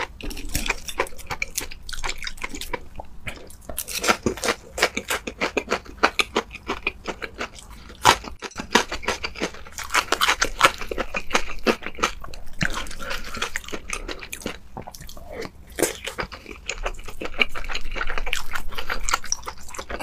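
A person eating close to the microphone: dense, rapid wet chewing with crisp crunching bites, a mukbang-style stream of mouth sounds.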